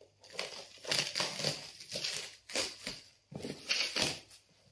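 Plastic stretch wrap crinkling and crackling in irregular bursts as it is pulled and peeled off a shipping box by hand, stopping near the end.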